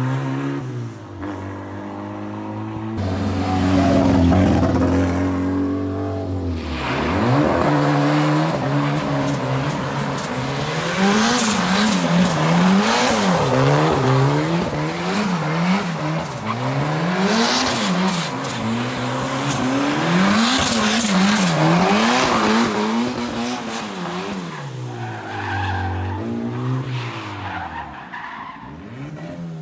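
BMW E36 drift car sliding in circles: the engine is revved up and down again and again at high revs while the rear tyres squeal as they break loose and spin. The car runs steadily at first, and the sound tails off near the end as it drives away.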